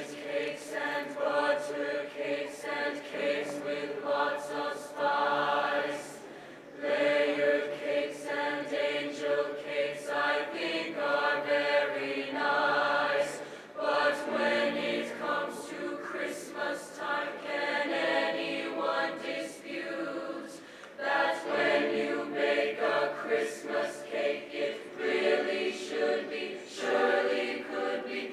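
A choir singing in harmony, in phrases separated by brief pauses.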